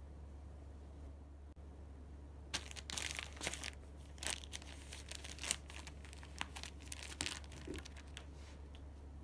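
A Norwegian Forest Cat biting and pawing at a printed packet, making the packaging crinkle and crackle in irregular bursts. It starts about two and a half seconds in and dies down near the end.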